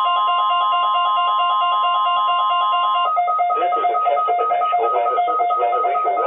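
NOAA Weather Radio 1050 Hz warning alarm tone, a steady high tone that starts abruptly and cuts off after about three seconds. Throughout, a rapidly warbling two-pitch alert sounds, and it goes on as a pulsing beep after the steady tone stops, with the broadcast voice faintly underneath.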